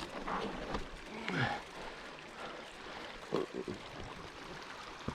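Mountain bike riding through a creek crossing: water splashing and tyres rolling over rocks, with a few sharp knocks about three and a half seconds in.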